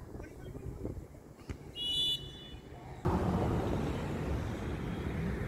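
A referee's whistle blown once, a short shrill blast about two seconds in. About a second later a louder steady rushing noise sets in and carries on.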